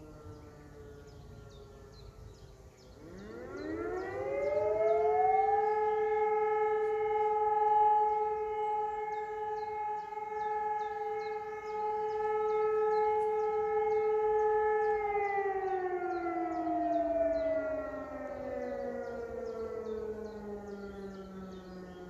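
Civil defence siren test: a motor-driven E57 siren spins up quickly about three seconds in, holds a steady pitch for about ten seconds, then is switched off and slowly winds down in pitch. At the start, another siren is still winding down.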